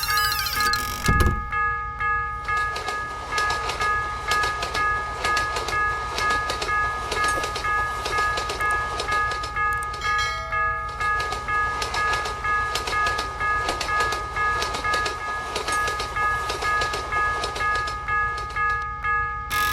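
A train passes over a railroad crossing, its wheels clattering in a steady rhythm, while the crossing's warning bell keeps ringing. A short low thump comes about a second in.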